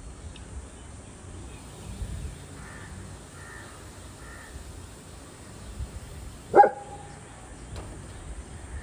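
A golden retriever gives one short, loud bark about two-thirds of the way through. Before it, three faint crow caws come from outside.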